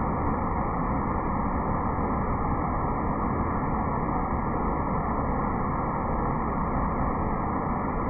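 Waterfall cascading down tiered rock ledges: a steady, even rush of falling water.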